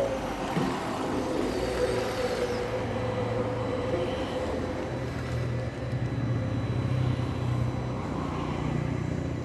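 Small electric drive motors of a 3D-printed model excavator undercarriage running under test: a steady whine, a little lower in pitch just at the start, over a low hum that swells and fades.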